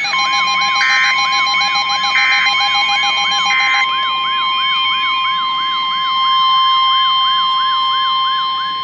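Emergency weather alert tones. A siren-like alarm wails in falling sweeps about three times a second over a steady NOAA Weather Radio 1050 Hz warning alarm tone. Three short data bursts, the SAME header marking the start of a new warning, sound in the first few seconds.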